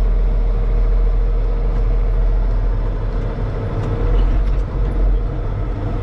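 Farm tractor engine running steadily under load, heard from inside the cab as a constant low drone with a steady whine in it.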